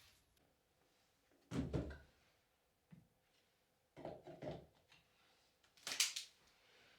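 Objects being handled: three short bouts of knocking and clattering about two seconds apart, the last one the sharpest.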